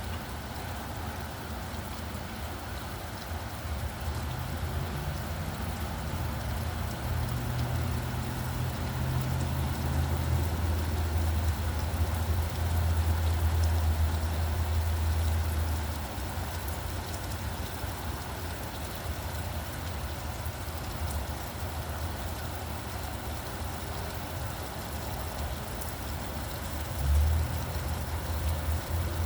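Steady rain falling, with road traffic passing. A vehicle's low rumble builds from a few seconds in, is loudest about halfway through, then fades, and a brief louder low thump comes near the end.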